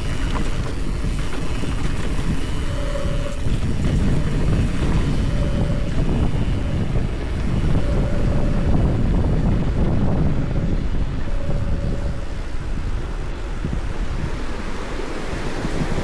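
Wind buffeting the microphone of a helmet-mounted camera on a fast mountain-bike descent, with the steady rumble of the bike's tyres rolling over trail and pavement. A faint short hum comes and goes every few seconds.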